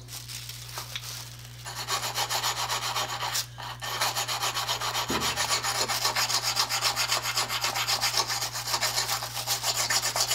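Small brass wire brush scrubbing a carburetor part in quick back-and-forth strokes, several a second, cleaning it during a rebuild. The scrubbing starts about two seconds in and pauses briefly after that.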